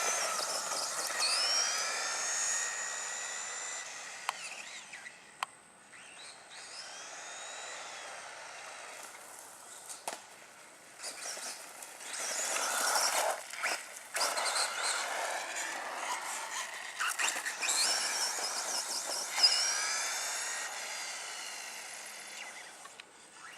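Losi 22 RC buggy's 13.5-turn sensored brushless motor whining. The pitch rises as it accelerates and falls away, in several bursts as the car is driven around, with a few sharp clicks.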